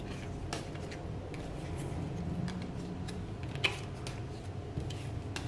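Light clicks and taps of round cardboard tarot cards being picked up and handled, with one sharper click a little past the middle, over a steady low hum.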